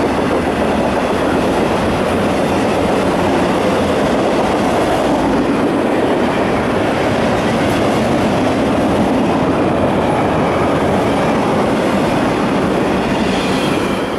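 Union Pacific double-stack intermodal freight train rolling past: the loud, steady noise of steel wheels on the rails, easing off near the end as the last cars go by.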